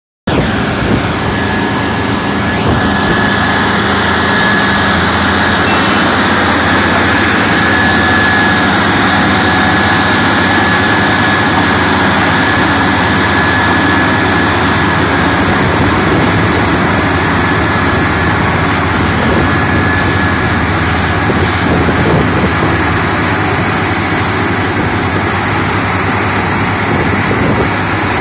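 Asphalt milling machine running steadily at work: a loud, even din of heavy diesel engine and cutting drum, with a thin high whine over it for much of the time.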